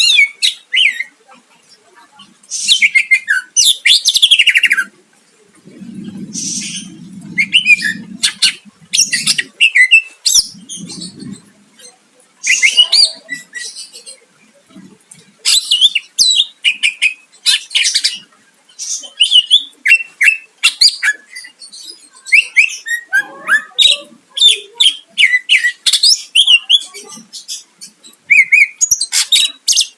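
Cucak ijo (green leafbird) singing energetically: rapid, varied bursts of high whistles, chirps and harsh chattering notes with short pauses between phrases.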